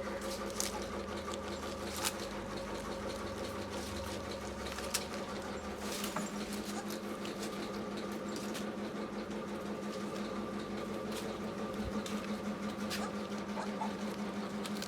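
A steady machine hum with a fast, even flutter, with a few sharp clicks over it.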